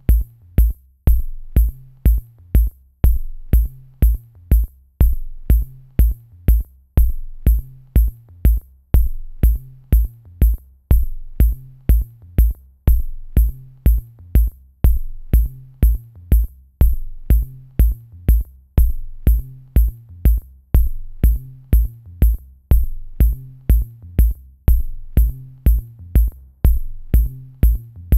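Background music: an electronic track with a steady drum-machine beat, deep kick hits about twice a second with sharp clicks on top.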